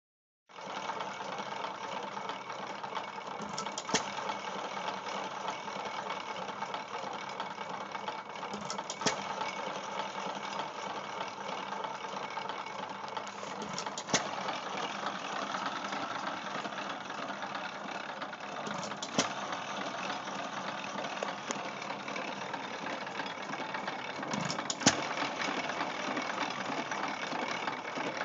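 1909 IHC Famous single-cylinder hit-and-miss engine running a belted IHC Type D feed grinder: a steady mechanical running and rattling, broken by a sharp pop, sometimes two close together, about every five seconds as the engine fires.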